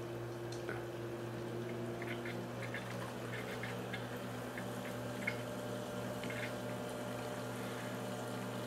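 Swiftech H220 liquid cooler's pump running with a steady hum just after first power-on, with water moving through the loop and faint scattered bubbling ticks: air still working its way out of the newly started loop.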